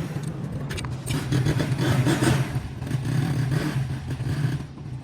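A motorcycle engine running steadily, with scattered metallic clicks and clinks over it.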